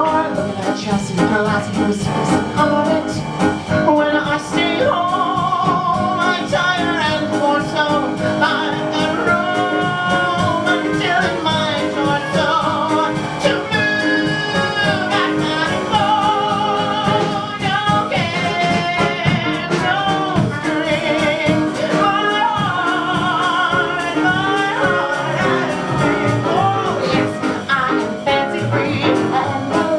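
Music: a singing voice with a wide, wavering vibrato over jazz-style accompaniment.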